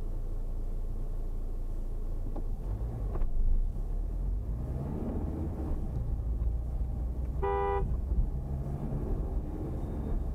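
Steady low road-vehicle rumble with a shifting engine note, and one short car-horn toot about seven and a half seconds in.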